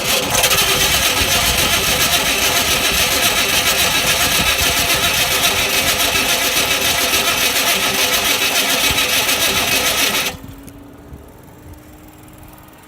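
1995 Chevy Caprice engine cranking on the starter for about ten seconds without catching, then cutting off suddenly: a no-start after three years parked, even with petrol poured in to prime it, which the owner tags as no spark.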